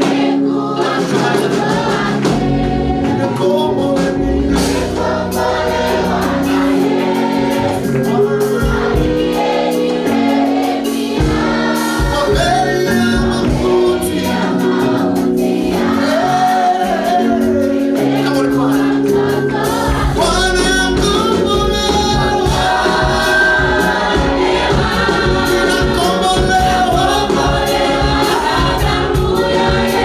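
Church worship team singing a Swahili hymn (tenzi): a male lead voice with a group of women singers, over instrumental accompaniment with sustained low notes and light percussion.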